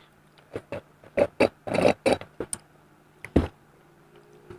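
A quick series of short clicks and knocks, about a dozen, from objects being handled and set down on a table; the loudest come around the middle. A faint steady hum runs underneath.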